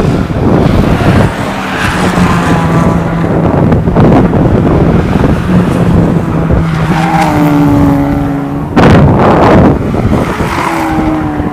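Ford Fiesta race cars going past at speed one after another. Their engines run at high revs and drop in pitch as each car passes. There is wind noise on the microphone, and the loudest rush comes about nine seconds in.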